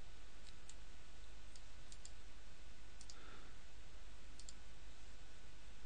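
Faint computer mouse clicks, several short pairs spread through, over a steady low hum and hiss.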